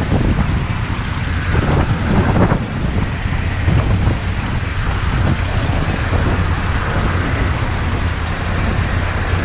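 Motorcycle being ridden on a wet road: the engine runs at a steady low hum under heavy wind noise on the microphone, which buffets in gusts during the first couple of seconds.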